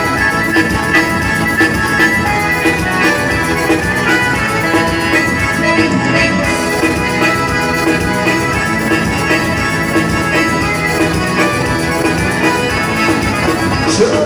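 Dance band music with accordion over a steady drum beat, an instrumental passage without singing.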